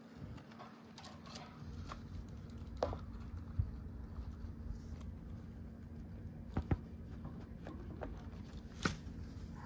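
Soft rustling, like paper or bedding being handled, broken by a few sharp clicks and taps, over a steady low hum.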